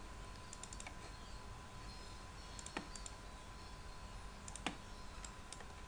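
A handful of computer mouse-button clicks, the sharpest near three seconds and near five seconds in, over a faint steady hum and hiss.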